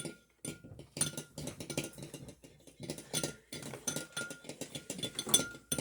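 Utensil stirring batter in a mixing bowl: irregular clicks and scrapes against the bowl, with a faint ring from the bowl now and then.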